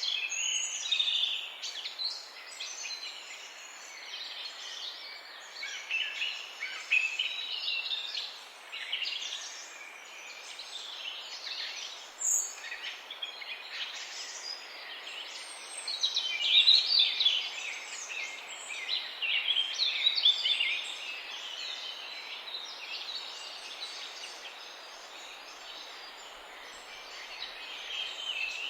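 Morning chorus of many small songbirds chirping and trilling over each other, with no single species standing out, above a steady background hiss. The singing grows denser about halfway through.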